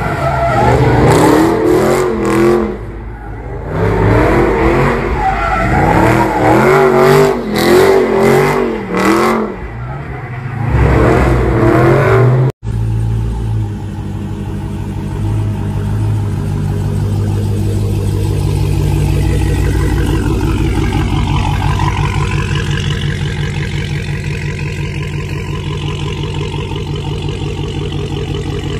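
Dodge Challenger's engine revved hard in repeated rising-and-falling bursts as its rear tyres spin. After a sudden cut about twelve seconds in, a widebody Dodge Charger's V8 runs at steady high revs as the car slides in circles.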